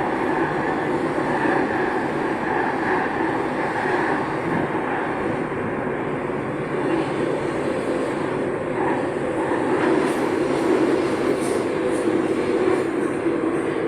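Santiago Metro AS-02 train heard from inside the car while running, a steady rumble of wheels on track and motor hum.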